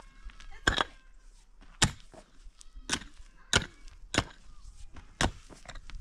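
Pickaxe striking hard, stony ground while digging a trench, about six sharp blows at uneven intervals of roughly a second.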